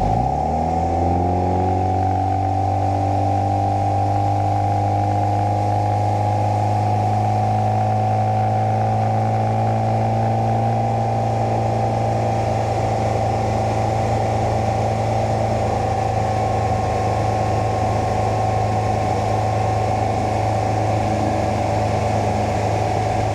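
Mercruiser 120 hp four-cylinder sterndrive engine speeding up over about the first two seconds, then running steadily under way.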